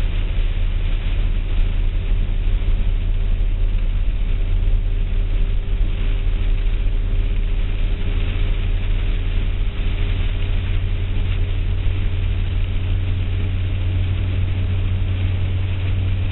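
A car driving, heard from inside: a steady low engine and road rumble with a faint, even hum and hiss, no sudden changes.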